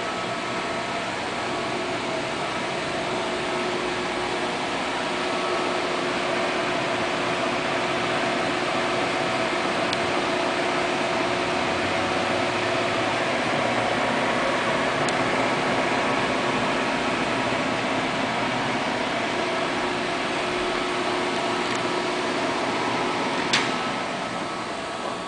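MSC metal lathe running steadily, a hum of motor and gearing with a faint whine in it. A sharp click comes near the end, after which the sound begins to die away.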